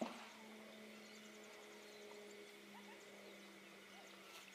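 Near silence with a faint steady low hum, broken by one brief sharp knock right at the start.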